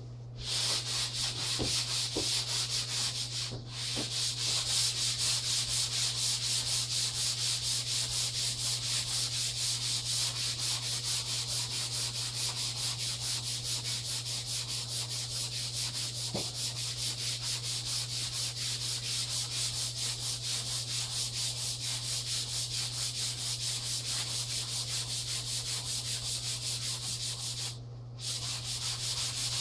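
Hand-sanding a painted drywall wall with a sanding block: a steady run of quick, even back-and-forth scratching strokes, with brief pauses about three and a half seconds in and near the end.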